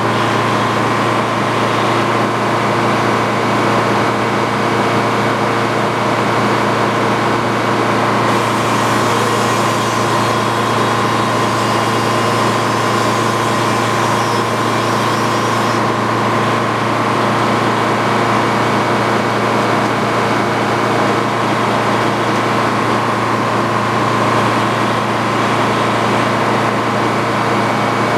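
The power unit of an antique Frick sawmill running steadily under power. A high hiss grows stronger for several seconds in the middle.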